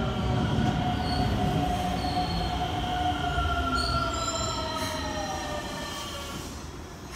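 Keikyu 800-series six-car electric train pulling out and moving away. Its running noise carries several whining tones that slowly shift in pitch, and it grows quieter toward the end.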